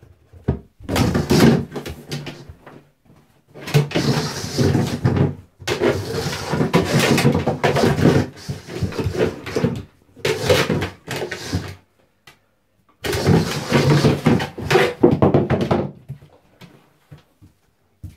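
An upturned plastic stool being shoved and scraped across a hard floor by a dog trying to get at a ball underneath, with knocks against the wall. The scraping comes in five rough, loud stretches of one to four seconds each, with short pauses between.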